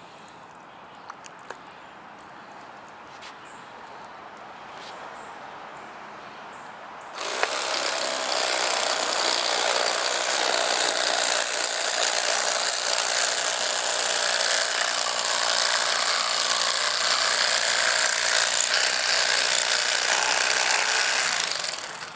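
Cordless Bubba Blade electric fillet knife running, its reciprocating blades buzzing steadily as it cuts through a fish's ribs. It starts about seven seconds in and stops near the end.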